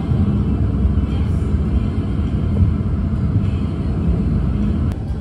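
Steady low rumble of a car driving along a road, heard from inside the car: road and engine noise.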